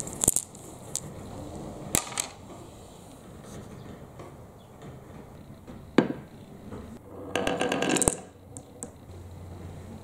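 Handling sounds: small clicks and clinks as a velvet drawstring bag is worked open, then a sharp knock of a wooden block set down on a wooden marble-run track about six seconds in, followed by a short scraping rattle of wood on wood.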